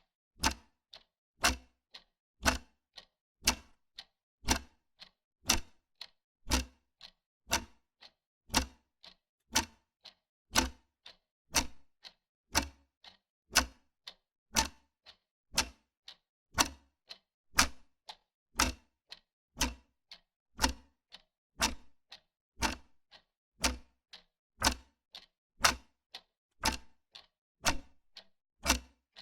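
Wall clock ticking steadily, about two ticks a second, alternating a louder and a softer tick in a tick-tock rhythm.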